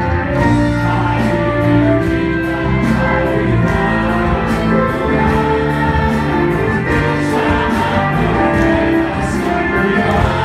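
Upbeat Christian worship song played by a live band with keyboard through a PA system, with a group of voices singing along over a steady beat.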